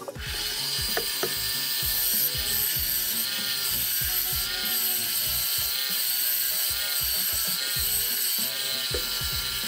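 Turning tool cutting into a spinning wooden plate on a wood lathe, throwing off a stream of shavings: a steady, loud cutting noise as the next section of the plate is turned down.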